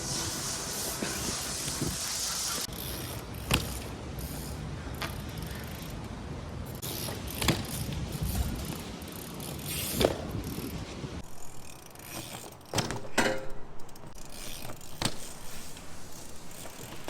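BMX bike being ridden and worked through tricks on wet pavement: a freewheel ratchet ticks over the tyre noise, with a hiss over the first few seconds. Several sharp knocks are spread through it.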